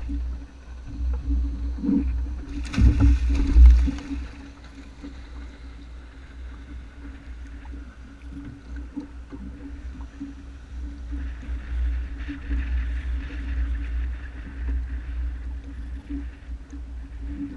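Honda F-12X AquaTrax personal watercraft under way, its engine running with a steady tone under a rumble of wind and water noise, with a loud burst of noise about three seconds in.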